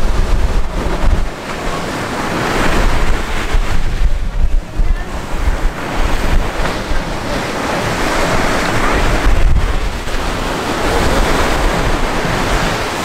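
Surf washing onto a beach in swelling and easing surges, with wind buffeting the microphone in low rumbling gusts.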